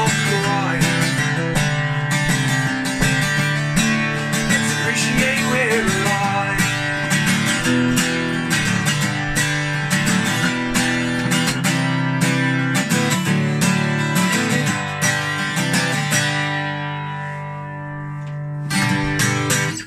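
Steel-string acoustic guitar strummed steadily, with a man singing over it for the first few seconds. Near the end the strumming stops and a chord rings and fades. One last strummed chord follows just before the end.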